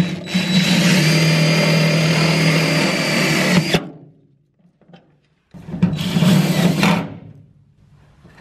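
DeWalt 20V cordless drill driving a self-tapping screw through a rock light mount into the truck's wheel-well metal. It runs steadily for about three and a half seconds, stops, then runs again for about a second and a half.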